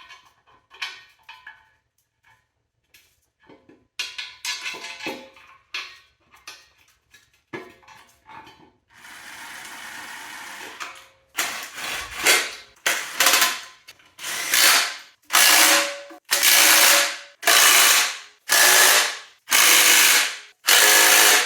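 Socket ratchet clicking as bell housing bolts on a 4L60E transmission are run down and tightened. It starts with scattered clicks and a couple of seconds of steady ratcheting. In the second half come loud, even ratchet strokes at about one a second.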